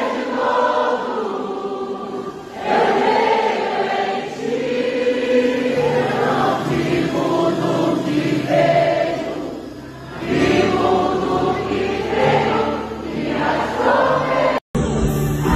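A large concert crowd singing a worship song together with the band, in long held phrases that swell and fall, recorded from among the audience. There is a brief dropout near the end.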